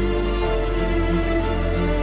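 Background music with held chords over a sustained bass; the bass note changes about half a second in.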